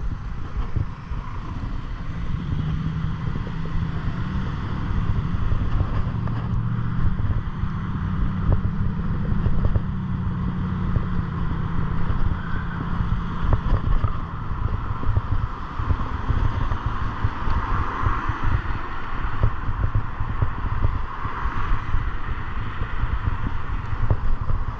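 Wind buffeting the microphone during a bicycle ride: a steady rumble with rustling and flapping.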